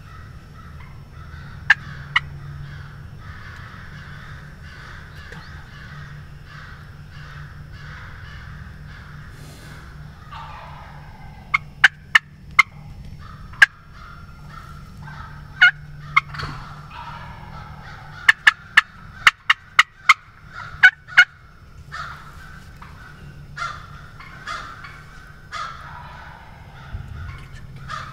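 Wild turkeys calling: a roosted gobbler gobbling, and a hen close by talking with loud, sharp clucks that come in quick runs from about halfway through.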